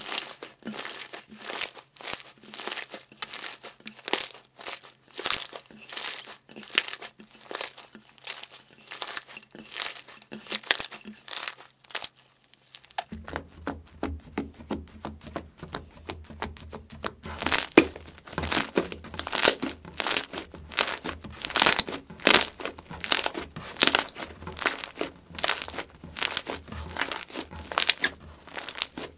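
Hands squeezing and kneading slime, a dense run of sticky crackles and pops. About halfway through it switches to a thicker green slime, and the crackles get louder and sharper.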